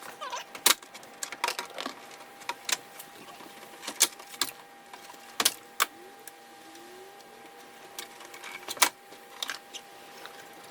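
Plastic interior trim panels being handled and set aside: a string of scattered sharp clicks and knocks, with a faint steady high tone running underneath.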